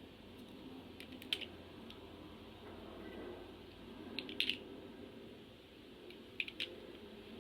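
Three short clusters of small sharp clicks, about a second in, about four seconds in and just after six seconds, over a faint steady low hum.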